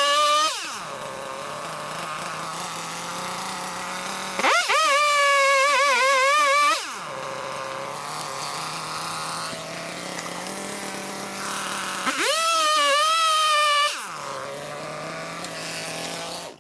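Gas chainsaw revved up to full speed three times, about four seconds apart, each time with a fast rising whine that holds high with a wavering pitch for one to two seconds. Between the bursts it idles steadily.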